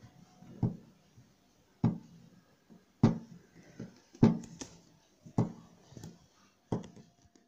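Fingers tapping on a wooden carrom board: about eight sharp knocks in a slow, fairly even beat, each with a short hollow boom from the board.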